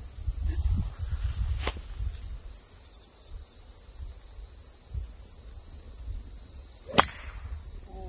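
A golf club striking the ball off the tee: one sharp crack about seven seconds in. Under it, steady high insect chirring and low wind rumble on the microphone.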